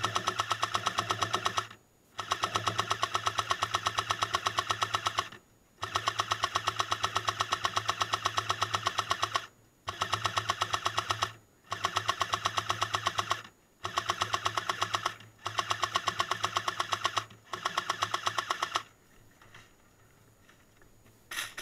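Airsoft M60 support gun firing long bursts of rapid full-auto fire, about eight bursts of one to four seconds with brief pauses between them, then a pause and one short burst near the end.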